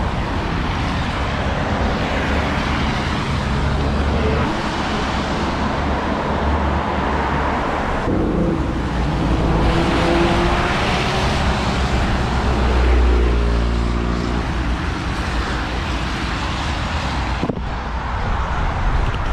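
Busy road traffic: cars passing close by with steady tyre and engine noise. One vehicle passes louder about two-thirds of the way through.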